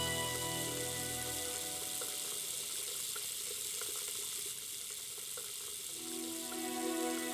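Water running steadily from a bathroom tap into the sink, a continuous hiss. Soft background music fades out early and comes back near the end.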